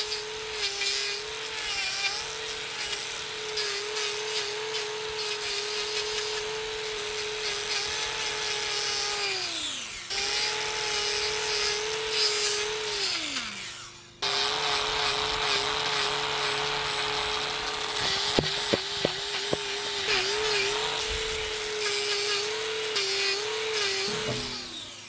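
Angle grinder fitted with a titanium trimming disc running at speed while it grinds a bull's hoof horn. Its whine wavers slightly under load. Twice it is let off and spins down with a falling pitch, then starts again. A few sharp clicks come later, and it spins down once more at the end.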